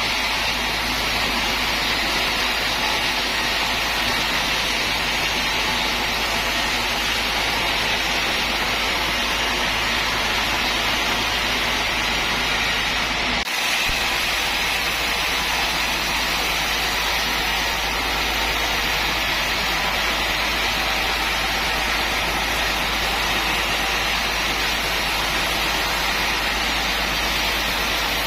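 Sawmill machinery running steadily, a continuous mechanical noise with a low rumble beneath, dropping out for an instant about thirteen seconds in.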